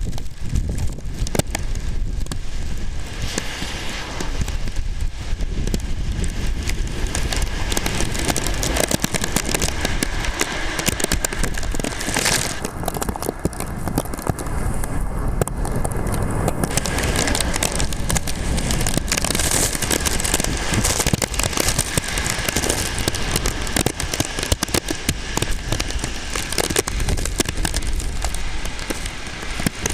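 Typhoon storm noise: wind buffeting the microphone in a steady low rumble, with rain crackling and spattering throughout.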